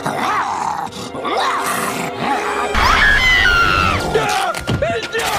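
Cartoon voices grunting, groaning and yelling in quick edited snippets, with music under them. A long high scream begins about three seconds in over a loud low rumble.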